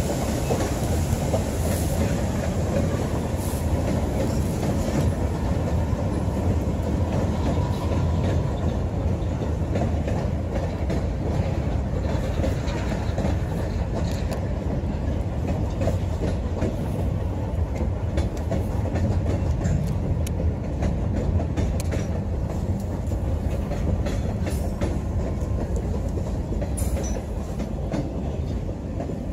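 Freight train of hopper and gondola cars rolling steadily past, wheels clicking over the rail joints under a continuous rumble.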